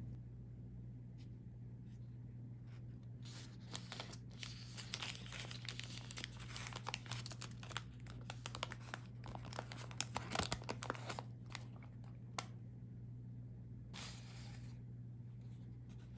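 Paper food wrapper torn open and crinkled by hand: a run of crackling rips from about three seconds in to about twelve seconds, then a short papery slide near the end.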